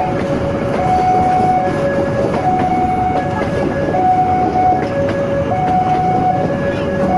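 Passenger train coaches rolling past on the rails, a steady rumble with some clatter. Over it an electronic warning signal sounds two tones, high then low, each held for about three-quarters of a second, over and over.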